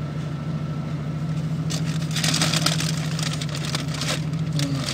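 Car engine idling steadily, with a stretch of hissy rustling noise from about two to three seconds in.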